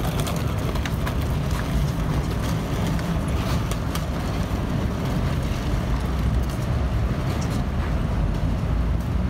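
Steady city street noise, a deep rumble of passing traffic.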